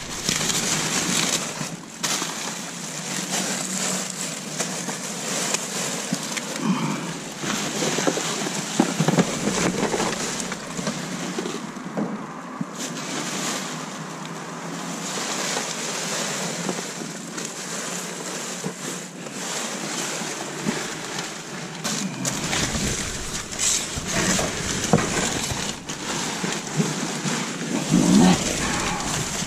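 Steady rushing outdoor noise with irregular rustles and knocks of rubbish being handled and sorted.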